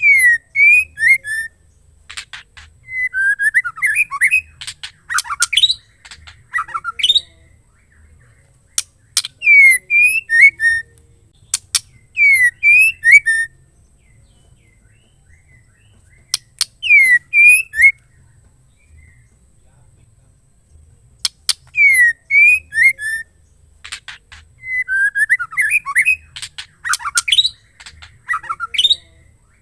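Female white-rumped shama calling: short phrases of quick sliding whistles mixed with sharp clicks, repeated after pauses of a second or more.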